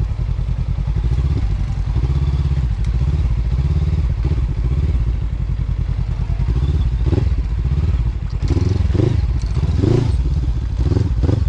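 A Honda CB500X parallel-twin motorcycle engine running at low speed on a rough track, with clattering knocks from the bike bouncing over rocks, most of them in the second half.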